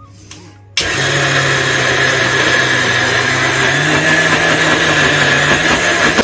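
Electric mixer grinder with a steel jar grinding soaked urad dal with garlic, green chillies and spices into a paste. The motor switches on abruptly about a second in and runs loud and steady, its hum rising slightly in pitch about four seconds in.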